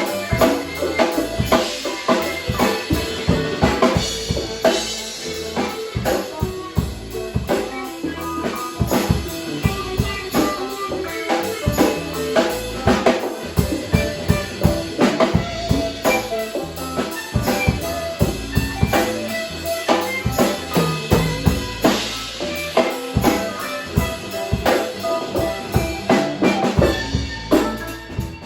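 Music with a steady drum-kit beat, bass drum and snare, under pitched instruments.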